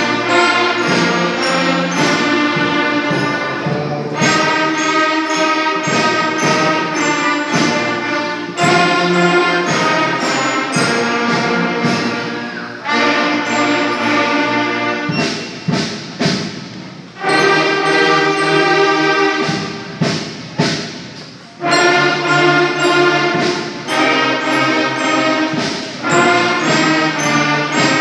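School concert band of flutes, clarinets, trumpets and tubas playing held full chords. Twice in the middle it breaks into a few short, separated chords with brief drops between them.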